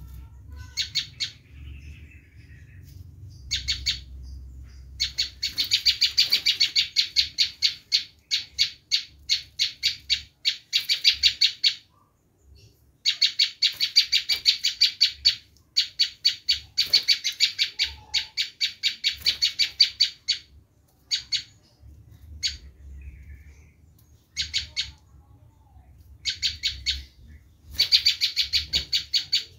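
Prenjak lumut calling in its harsh 'screaming' mode, used as a lure call: fast runs of sharp, high chipping notes, about five a second, in bursts several seconds long with short breaks between them.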